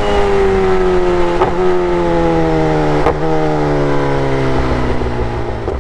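Kawasaki ZX10R's inline-four engine through an SC Project full-system exhaust, its note falling slowly and steadily as the revs drop, with three brief clicks along the way.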